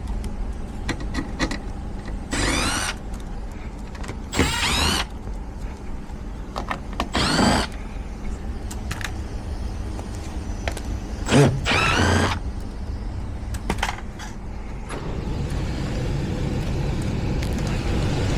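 A cordless drill running in about five short bursts, its whine sweeping up and down each time, over the steady hum of running HVAC equipment that grows louder from about 15 seconds in.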